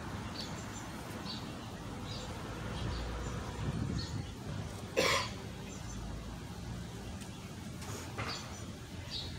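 Jump rope skipping on a concrete sidewalk: irregular light ticks of the rope against the pavement, with one sharp smack about five seconds in.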